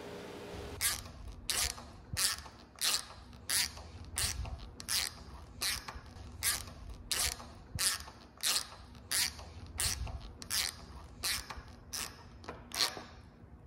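A hand screwdriver turning a screw down into wooden floorboards, with a short scratchy rasp at each twist of the wrist, about one and a half a second. A workshop machine hum cuts off about a second in.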